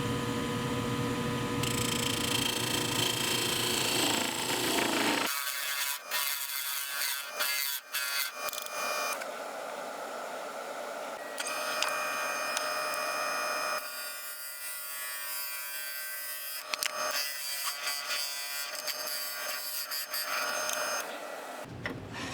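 Mini wood lathe running while a parting tool cuts into the spinning wooden handle, a scraping cut over the motor's whine. The sound changes abruptly several times, as separate cutting passes are joined.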